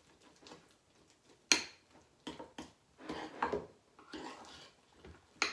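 A metal spoon stirring and mashing potato salad in a bowl, with clinks of the spoon against the bowl: one sharp clink about a second and a half in, then a run of softer clinks and scrapes.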